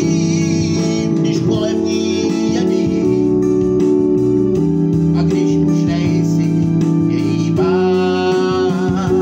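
A man singing a Czech song over sustained organ-like electronic keyboard chords. Near the end he holds one long note with a wavering vibrato.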